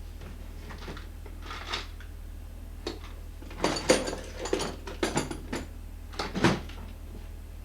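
Metal tools clattering as someone rummages through a toolbox for a small hammer: a run of irregular clinks and knocks, thickest in the middle.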